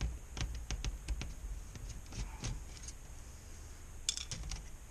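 Small screwdriver and tiny screws clicking and tapping against the metal frame of an LCD panel as the screws are backed out. The light, irregular clicks come thickest early on, with a sharper cluster about four seconds in.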